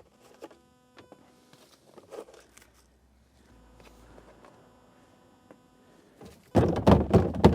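Small clicks and taps of things being handled inside a vehicle's cab. Near the end comes a louder burst of knocking and rustling.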